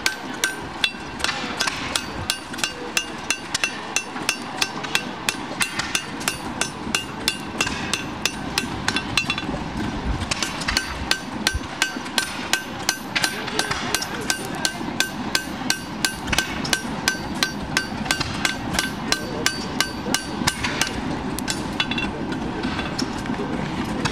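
Farrier's hand hammer striking an agricultural draft horseshoe held with tongs on an anvil while forging it to shape: a steady run of ringing metal blows, about three a second, with a short break near the end.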